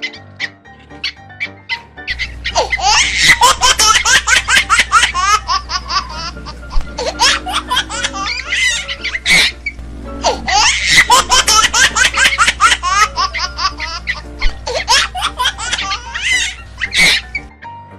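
A baby giggling and belly-laughing in quick bursts, with the same stretch of laughter heard twice in a row over a steady low music bed.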